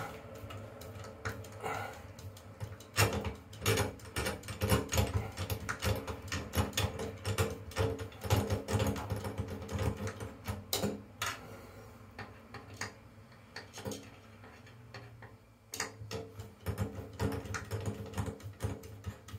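A long screwdriver turning the central screw of a bath waste's chrome plug grate, tightening the waste to the bath: metal clicks and scrapes in quick, irregular strokes, easing off for a few seconds past the middle before picking up again.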